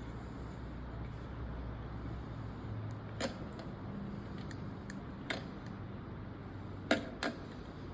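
Lamp parts being handled during assembly: a few light, sharp clicks and taps spread over several seconds, with a low steady hum underneath.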